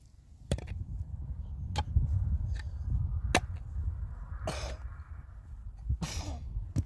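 Pick-mattock striking dry, stony hillside soil: four sharp blows a second or more apart, with two short rasping noises in between.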